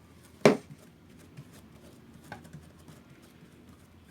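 Hands handling slime on a plate: one sharp knock about half a second in, then a few faint clicks.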